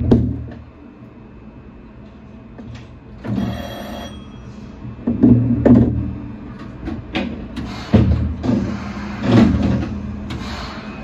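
A short electronic chime rings for about a second, three seconds in, aboard a stationary Shonan Monorail 5600-series train. Several loud thuds with low rumbling come around it.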